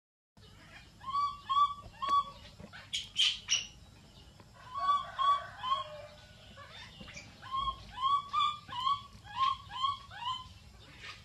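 Newborn macaque crying: strings of short, arched, high-pitched calls in bouts of several, with a few shriller squeals about three seconds in.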